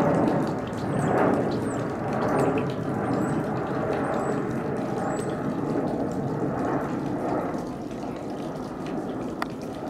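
Airbus A220 jetliner passing low overhead on approach with its landing gear down: a steady rushing jet-engine noise that swells and eases slightly and fades gradually over the last few seconds. Short high bird chirps sound now and then in the first half.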